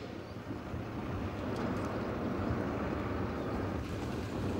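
Military helicopter running on the apron: a steady, dense engine and rotor rumble.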